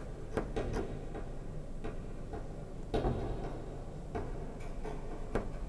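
A clock ticking slowly, about once a second, over a low steady hum.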